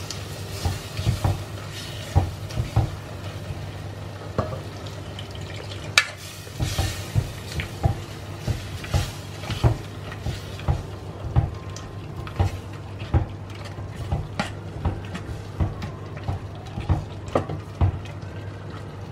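A metal ladle stirs masala-coated vegetables and added water in an earthenware pot, knocking and scraping against the pot's sides about once or twice a second, with one louder knock about six seconds in. The knocks sit over a steady low hum.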